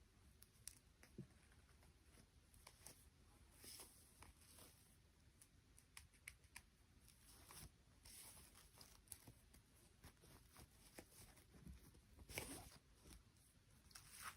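Faint handling noise: scattered light clicks and a few brief rustles, with the loudest rustle about twelve seconds in.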